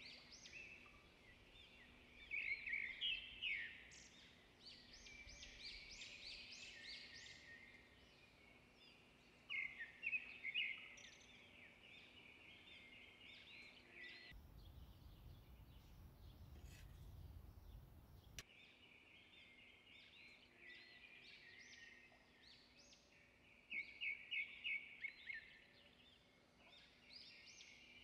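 Birds singing: bursts of quick, high chirping trills several times over a faint background. About halfway through, the birdsong stops for a few seconds and a low rumbling noise takes over.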